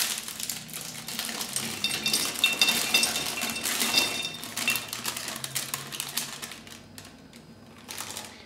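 Frozen berries dropping into a glass pitcher, clattering and clinking against ice cubes and the glass in quick irregular clicks. The clatter dies down about six seconds in.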